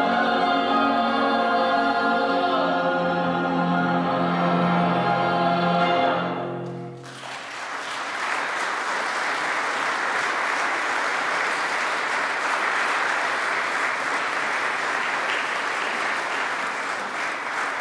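A mixed choir holds a final sustained chord that dies away about six seconds in, followed by steady audience applause.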